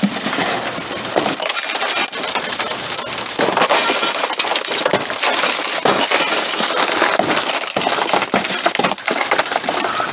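Shattered tempered safety glass crunching and clinking, a dense run of small pieces cracking, falling and scraping, with a high steady hiss that comes and goes.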